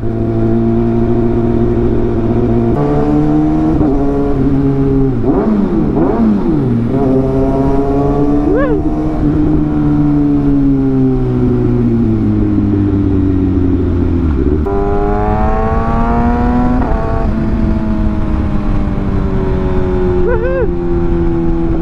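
Kawasaki ZX-6R inline-four engine running while under way, its pitch rising and falling with the throttle, with sudden steps in pitch a few seconds in and again about two-thirds of the way through.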